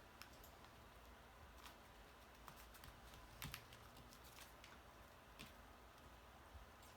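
Near silence with faint, scattered light taps and clicks of paper card pieces being handled on a work surface, a slightly louder double tap about three and a half seconds in.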